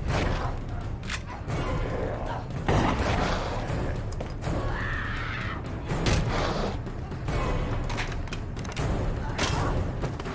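Sound effects of a hand-to-hand fight: repeated heavy hits and thuds with voices crying out, over background music and a low rumble.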